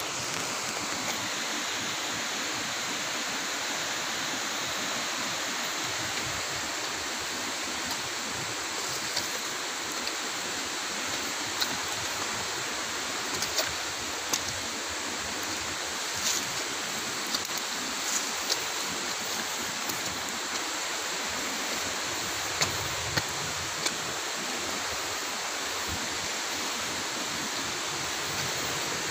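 Steady rush of river rapids flowing over boulders, with a few short high ticks scattered through it.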